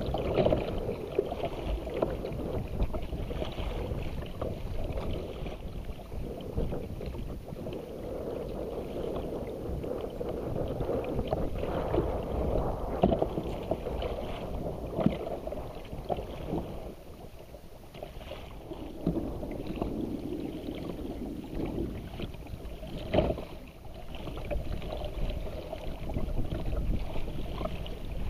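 Choppy wind-driven waves slapping and splashing against a kayak's bow as it is paddled, with now and then a sharper splash, over gusty wind on the microphone.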